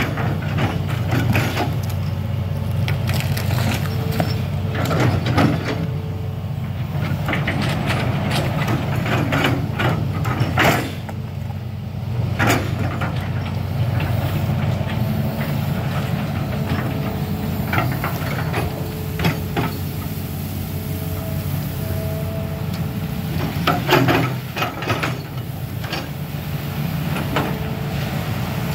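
Hitachi amphibious excavator's diesel engine running steadily under digging load, with a faint steady hydraulic whine over it and repeated knocks and clanks from the boom and bucket as it scoops mud from the canal. Near the end the bucket churns the water, splashing.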